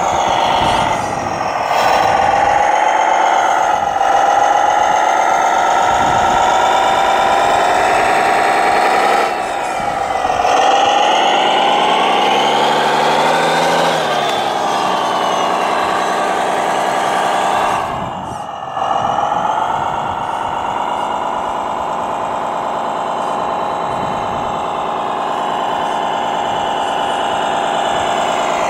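Radio-controlled 6x6 truck's engine-sound module playing a simulated diesel engine through a small speaker. It runs steadily, revs up and back down about midway, and briefly drops out about 18 s in.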